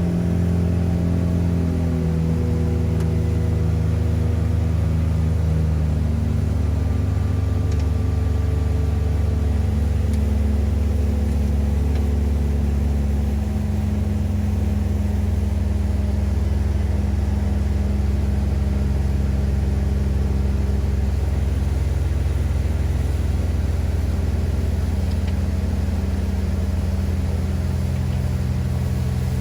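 Tour boat's engine running steadily under way, its pitch easing down slightly over the first few seconds and then holding.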